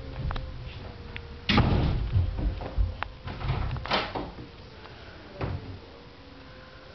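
Interior door being handled and swung open, with a few knocks and bumps, the loudest about a second and a half in, and a last one shortly before the end as the door comes open. A faint steady hum runs underneath.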